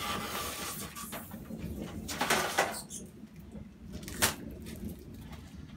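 Handling noise from a shop light fixture being unpacked: scraping and rustling of the fixture and its packaging, with a sharp click about four seconds in.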